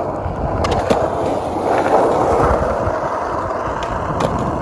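Skateboard wheels rolling hard over pavement with a steady grinding rumble, broken by a few sharp clacks of the board, about a second in and again near the end.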